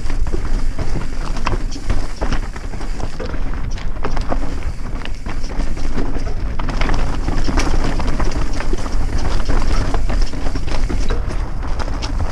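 Wind buffeting the microphone while moving fast over loose rock, with constant rattling and clattering of stones and gear.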